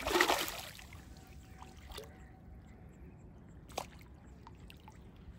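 A hooked fish thrashing at the water's surface makes one short, loud splash. Two faint clicks follow later.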